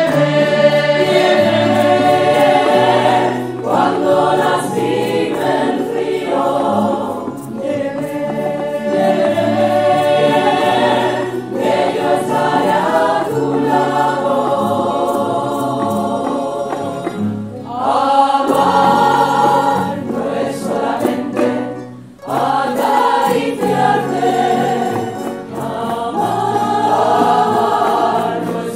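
A women's tuna sings a song together as a choir, accompanied by many Spanish guitars played together. There is a brief drop between phrases a little past two-thirds of the way through.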